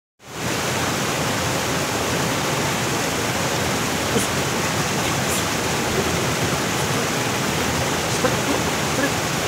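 Steady rush of water from a waterfall and fast-flowing stream, fading in at the very start.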